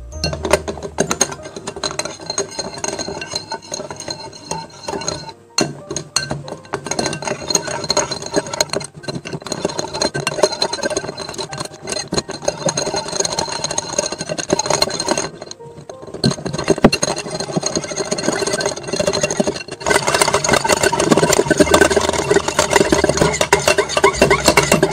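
Metal wire whisk stirring water and hard candies in a glass bowl, its wires rattling and clinking against the glass in a steady run to dissolve the candy. The stirring breaks off briefly a few times and is louder for the last few seconds.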